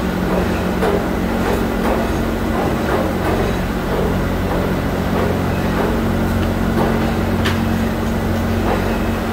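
Steady low hum of factory machinery, with scattered light metallic knocks and clinks.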